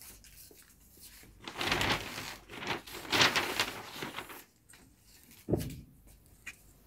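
Soft rustling and handling noises from a large sheet of pattern paper and drafting tools on a wooden table, in several short stretches, followed by one light knock about five and a half seconds in.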